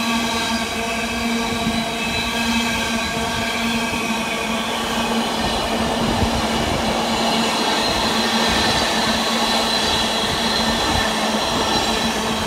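Empty container flat wagons of an intermodal freight train rolling past at speed: a steady rumble of wheels on rail, with several held tones ringing above it.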